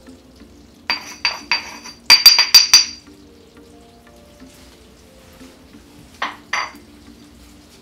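Sharp, ringing knocks of a stone mortar and pestle tapped to shake crushed red pepper flakes into a pan of boiling sugar syrup: three knocks about a second in, five quick ones right after, and two lighter taps past the middle. Between them the syrup bubbles faintly.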